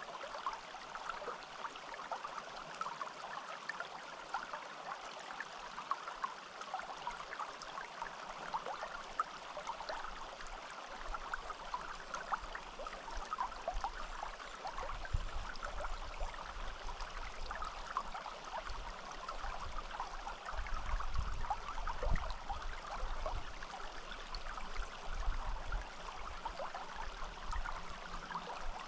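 A small forest stream flowing steadily, with many small splashes in the rush of water. About halfway through, an uneven low rumble starts to come and go beneath it.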